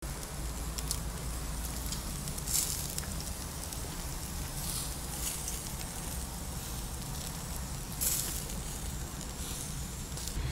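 Skewers of meat sizzling over a barbecue grill, with short hissing crackles every few seconds over a steady low rumble.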